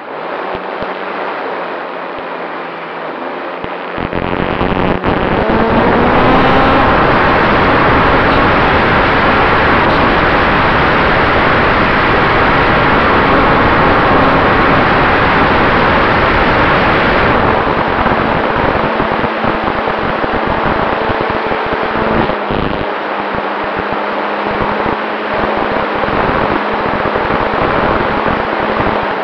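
Onboard sound of a radio-controlled Cessna 188 model in flight: its motor running under heavy wind rush on the mounted camera's microphone. About four seconds in the wind noise jumps and the motor's pitch rises as the throttle opens; a little past halfway the sound eases back.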